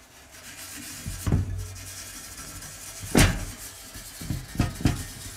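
A cloth rubbing metal polish over the steel motherboard tray of a computer case, with a steady rubbing noise and several knocks of the sheet-metal chassis. The loudest knock comes about three seconds in.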